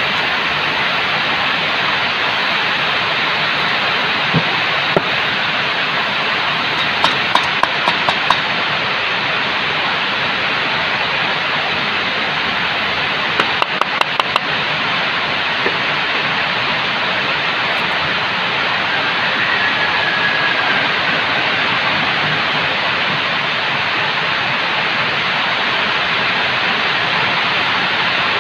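Steady, loud hiss of background noise, with a few small clusters of light clicks and taps from small metal parts being handled.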